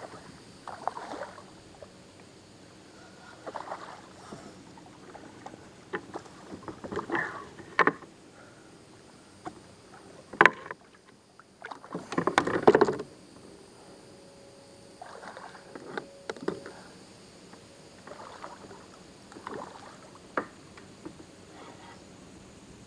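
Scattered water splashes and sharp knocks as a hooked redfish is fought and handled at the side of a fishing kayak. The loudest, longest stretch of splashing comes about halfway through.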